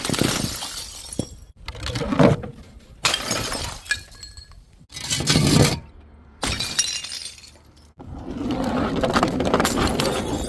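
Glass bottles shattering one after another, about five separate crashes, each followed by tinkling shards of broken glass. The last crash near the end rings on longer.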